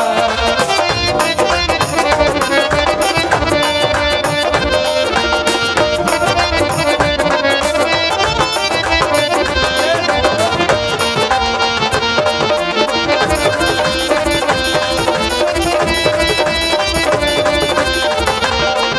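Instrumental break in a Punjabi Sufi devotional song: tabla playing a quick steady rhythm under a sustained melody line.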